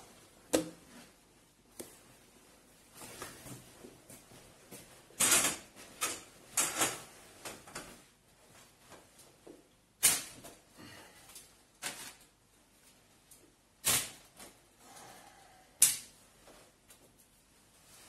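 Handling noise of fishing tackle and a seat box: irregular sharp knocks and clicks, a second or several apart, with rustling in between.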